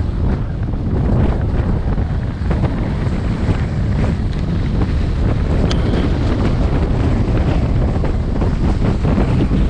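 Wind buffeting an action camera's microphone during a ski descent, a loud, steady rumble, with the scraping hiss of skis on snow.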